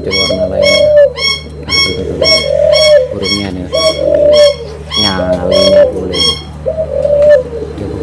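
Barbary doves cooing over and over, a low coo about every second and a half. Over them a fast, even series of high chirps, about three a second, runs on until about six seconds in.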